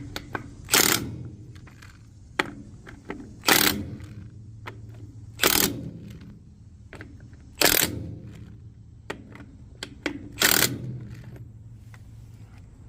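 Impact wrench running down the five wheel-clamp nuts on a Dayton spider hub one at a time. There are five short, loud bursts a couple of seconds apart, with small clicks of handling between them.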